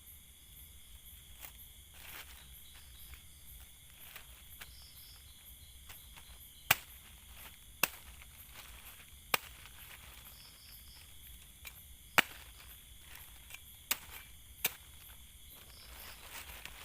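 Wood campfire crackling, with about half a dozen sharp pops at irregular intervals in the second half, over a quiet background of faint high chirping.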